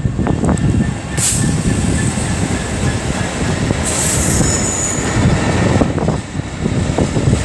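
Freight train rolling through at speed, its wagons making a steady rumble and rattle over the rails. A high-pitched wheel squeal comes briefly about a second in and again around four to five seconds in.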